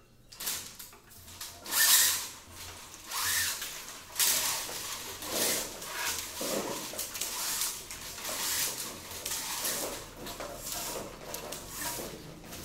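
Irregular rustling and scraping of electrical wires being handled and pulled, with the loudest burst about two seconds in.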